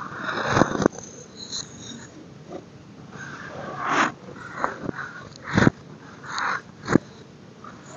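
Pressed baking soda blocks crushed and crumbled by hand into loose powder: dry, gritty crunching in short bursts, broken by a few sharp cracks about a second or more apart.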